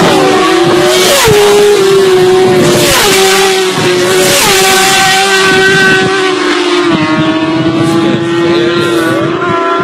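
Engine revved hard and held at high revs, a loud, steady high-pitched drone that drops slightly in pitch about seven seconds in.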